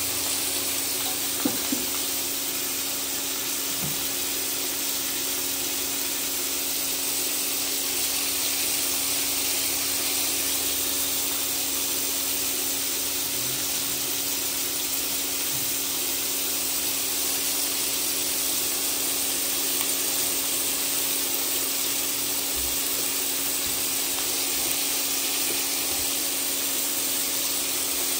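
Pork belly slices sizzling steadily in a hot pan, over a steady low hum. Two short clicks sound about a second and a half in.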